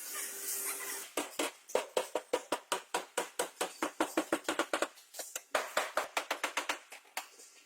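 Rapid run of short, sharp strokes from hand work with a tool, about five a second, with a brief pause partway through.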